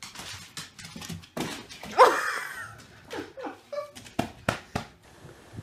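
Dog barking in a small room: a run of short, sharp barks, the loudest about two seconds in.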